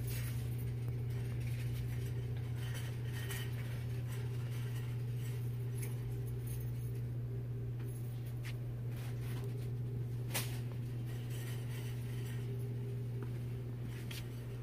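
Steady low hum of a shop's background noise, with a few faint clicks and clinks and one sharper click about ten seconds in.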